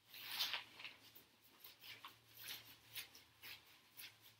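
Tent fabric rustling as it is handled, in a run of short, faint swishes about two a second.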